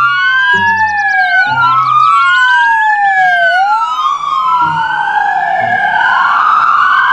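Several emergency vehicle sirens wailing together, each rising and falling slowly in pitch and out of step with the others. They cut off suddenly at the end.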